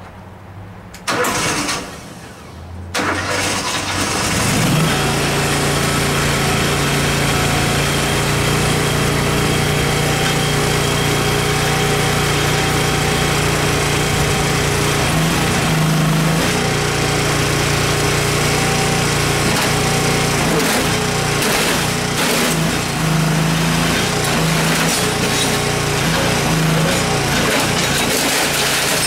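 Terramite compact backhoe's engine being cranked and catching within the first few seconds, then running steadily. Its pitch steps up briefly several times in the second half, as when the engine is put under load or revved.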